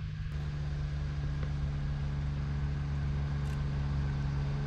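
Engine of a small utility vehicle towing a hut trailer: a steady low drone that grows slowly louder as it approaches.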